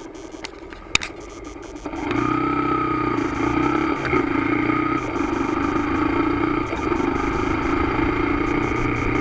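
Motorcycle engine idling at a traffic light, with a sharp click about a second in; about two seconds in the engine note rises sharply as the bike pulls away, then runs steadily under way.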